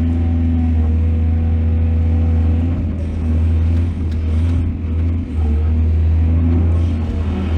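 Excavator's diesel engine running steadily with a deep hum. Faint clatter and brief dips in level come between about three and five and a half seconds in.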